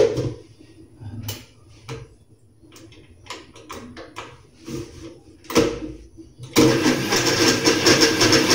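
A few clicks and knocks as the blender jug and lid are handled, then about two-thirds of the way through an electric countertop blender starts suddenly and runs steadily, blending a liquid mix of cheese, flour, milk and water for a sauce.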